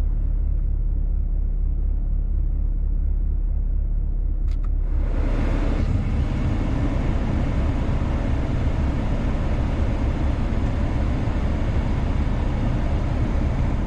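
A car engine idling with a steady low rumble, heard inside the cabin. About five seconds in, a steady rush of air starts from the climate control vents and keeps going as the scanner's active test drives the HVAC flaps.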